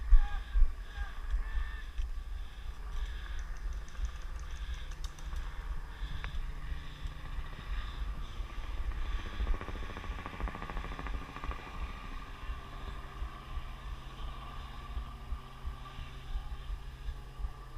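Low, fluttering wind rumble on a body-worn camera's microphone, with faint steady humming underneath.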